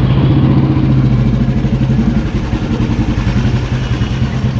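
Motorcycle engine running steadily on the move, easing off slightly about two seconds in.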